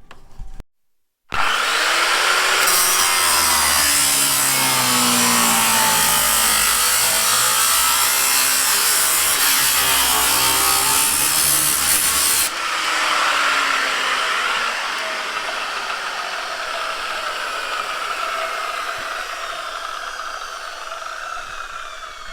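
A battery reciprocating saw cutting through the sheet-metal roof pillars of a ute body. It starts abruptly about a second in, runs as loud, steady rasping sawing, and changes character about halfway through.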